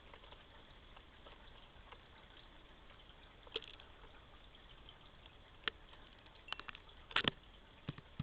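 Steady low hiss with scattered sharp taps and clicks, the loudest a quick cluster about seven seconds in: birds landing on and pecking at a seed feeder.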